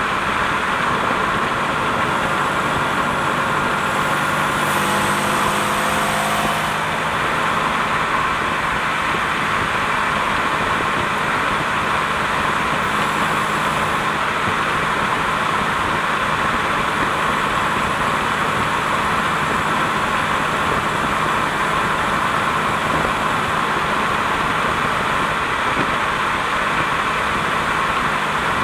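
Series II 3800 V6 and Getrag 282 five-speed transaxle of a 1988 Pontiac Fiero, recorded from beneath the car: steady engine and drivetrain noise. The engine note shifts briefly a few seconds in, then holds steady. Mixed in is a rattle that the owner puts down to the Getrag gearbox and the muffler, not in time with the engine.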